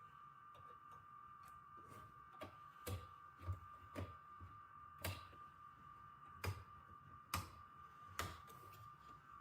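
Sharp clicks and knocks of hands working on computer parts, about eight of them spread irregularly over the last seven seconds, over a faint steady high hum.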